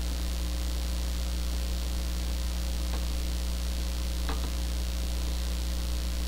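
Steady low electrical hum with hiss on the recording, with two faint clicks about three and four seconds in.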